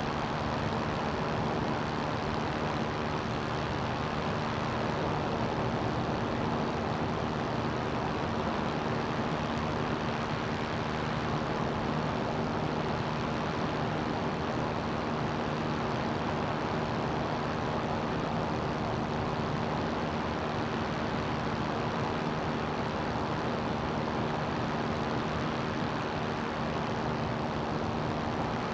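CGS Hawk ultralight's engine and propeller running steadily in flight: an even drone that holds one pitch, over a constant hiss of air.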